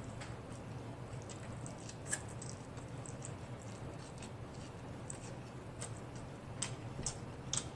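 Close-miked chewing of chow mein noodles: soft wet mouth clicks and smacks, about one or two a second, over a low steady hum.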